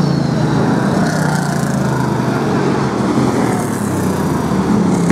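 Brisca F1 stock cars' V8 engines running at low revs as the cars roll slowly off the track, a steady loud drone whose pitch sags slightly now and then.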